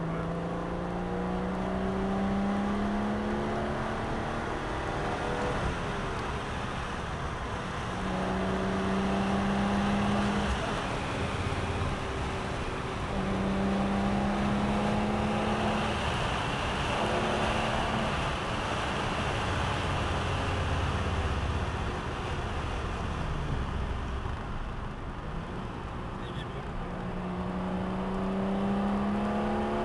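Alfa Romeo GTV6's 2.5-litre Busso V6 heard from inside the cabin, pulling up through the gears. The engine note climbs several times and drops back at each gear change, over steady road noise.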